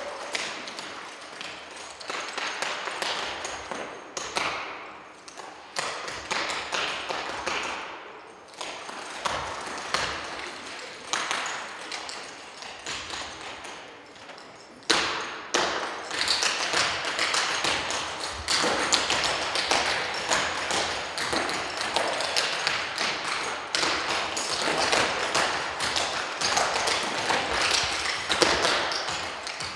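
Dancers' tap shoes striking a wooden stage floor in fast percussive footwork, with no music. The rhythm thins out for a moment about halfway through, then comes back louder and denser.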